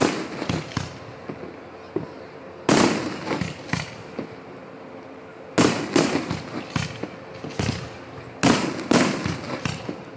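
Aerial firework shells bursting overhead: a series of loud booms about every three seconds, two close together near the end, each followed by a quick trail of smaller pops.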